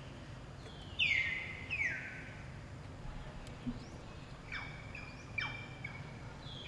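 Short, high chirping calls that drop in pitch, a pair about a second in and another pair about five seconds in.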